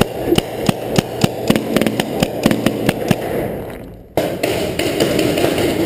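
Paintball marker firing in rapid succession, about four sharp shots a second for around three seconds, over a steady rushing noise. After a sudden break, only the rushing noise continues.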